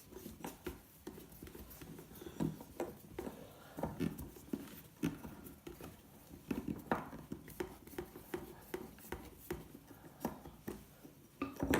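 Irregular small clicks, taps and knocks of plastic parts and screws being handled as a plastic gaming steering wheel is unscrewed and taken apart by hand.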